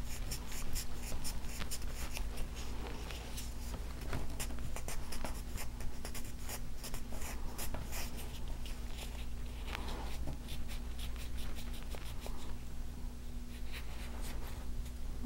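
Polishing pad rubbed back and forth over a soldered copper-and-silver pendant in quick, dry, scratchy strokes, wiping off Sharpie antiquing to bring up the shine.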